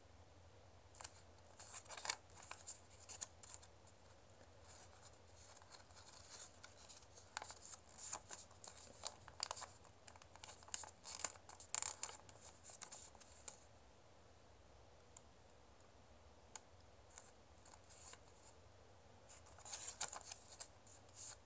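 A sheet of origami paper being folded and creased by hand: faint crinkling and sharp little crackles of the paper, in scattered bunches, with a quieter stretch a little after the middle.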